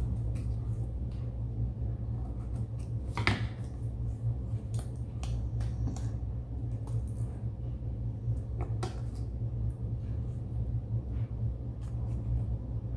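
Scissors snipping construction paper, with paper rustling as the cut strip is handled: scattered short snips and rustles, the loudest about three seconds in, over a steady low hum.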